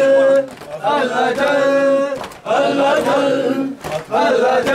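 Men chanting a noha refrain in unison, with the beat marked by chest-beating (matam), open hands slapping chests about once every second and a half.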